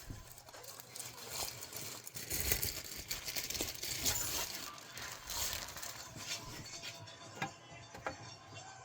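Light clinks, knocks and clatter of kitchen items being handled and set down on a counter, irregular and busiest in the middle.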